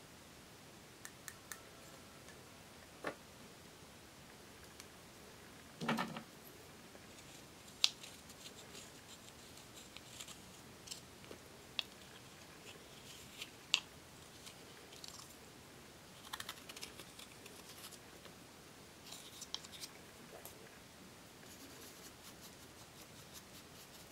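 Quiet clicks, taps and scraping from handling eyeshadow compacts, as pressed eyeshadow powder is scraped out with a small tool. There is one louder knock about six seconds in and a few sharp clicks after it.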